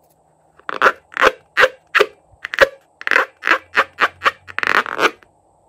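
Filled rubber balloon squeaking under fingers as it is squeezed and rubbed: about a dozen short squeaks in quick succession.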